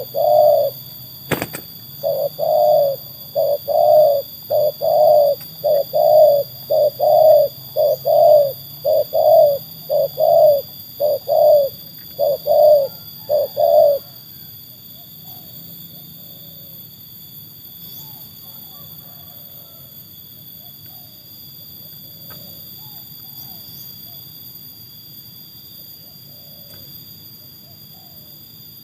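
Spotted dove (tekukur) cooing: a long run of short, low coo notes, about two a second and often in pairs, that stops about fourteen seconds in, leaving only faint scattered calls.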